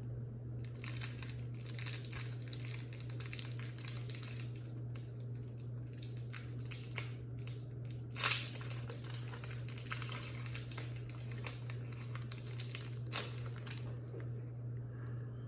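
Foil wrapper of a Pokémon trading-card booster pack crinkling and tearing as it is opened and handled, with two louder sharp crackles, about eight seconds in and near thirteen seconds. A steady low hum runs underneath.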